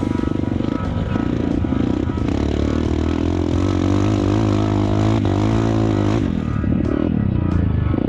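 Trail motorcycle engine running under load off-road, its pitch rising and falling as the throttle is worked, then dropping away about six seconds in.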